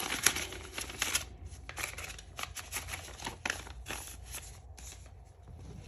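Paper money and a paper envelope rustling and crinkling as bills are stuffed into a cash envelope: a busy run of crisp rustles for about the first second, thinning to scattered rustles after.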